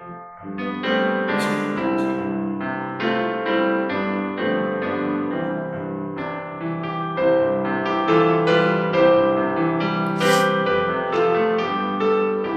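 Solo piano playing a slow, gentle piece of chords under a melody.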